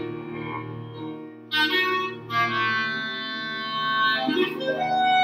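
Clarinet playing a phrase of held notes, with piano accompaniment. It grows much louder about a second and a half in.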